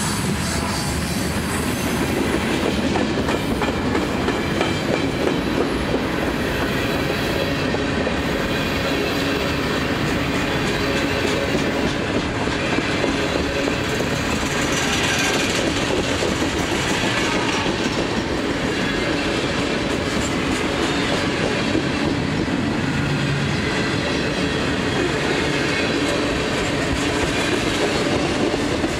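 Freight train of flatcars and tank cars rolling past close by: a steady rumble and clatter of steel wheels on the rails.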